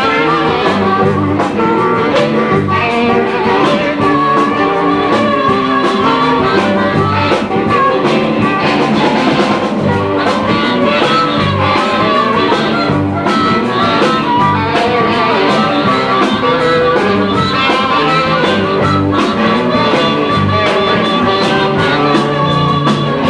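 Blues band playing live: guitar over bass and drums at a steady beat.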